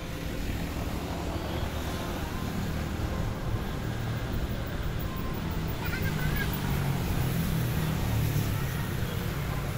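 Steady low engine rumble from a distant, unseen source, growing a little louder in the second half. A brief bird chirp sounds about six seconds in.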